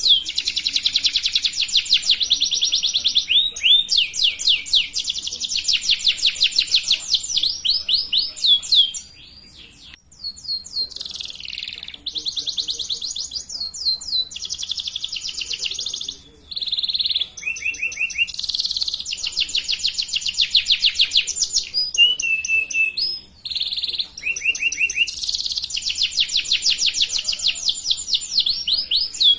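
Canary singing long, rapid trills in changing phrases of fast repeated notes and sweeps, with a brief pause about nine seconds in.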